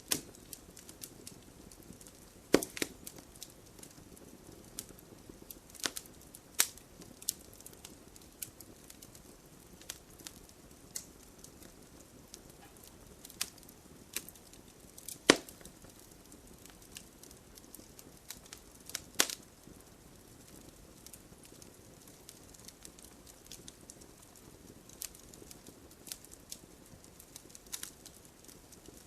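Campfire crackling: wood snapping and popping irregularly over a low steady hiss, with a few sharper, louder pops scattered through.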